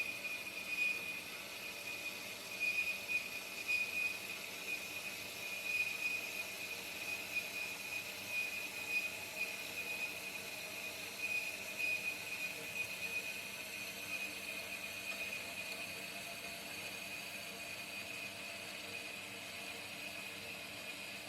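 Pilous semi-automatic metal-cutting bandsaw running, its blade cutting through 5-inch solid steel round bar with a steady high-pitched ring. The ring swells and fades about once a second in the first half, then holds steady.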